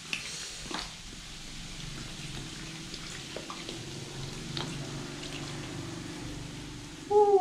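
Cola glugging and splashing out of an upturned plastic soda bottle into a plastic basin of fizzing soda, with a few small clicks. Near the end comes a short, loud sound that falls in pitch.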